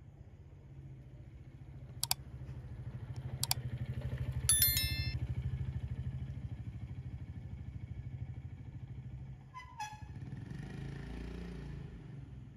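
Small step-through motorcycle riding slowly past, its engine hum building to its loudest about four to five seconds in, then fading away. Two sharp clicks come before it, and a brief high ding is heard at its loudest point.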